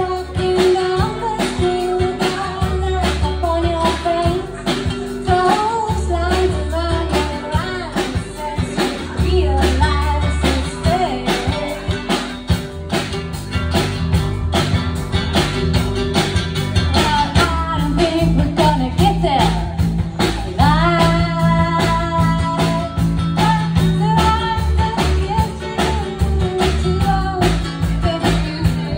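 A small live band playing a song: a woman singing lead over strummed acoustic guitar and electric bass, with a steady beat.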